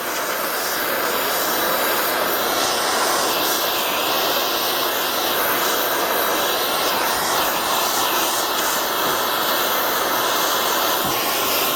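Soldering torch flame hissing steadily as it heats a silver buckle and bezel up to soldering temperature, about 1100 degrees.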